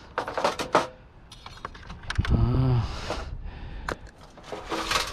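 Metal parts of a stripped water cooler clinking, rattling and scraping as they are handled, with a brief low drawn-out sound a little over two seconds in.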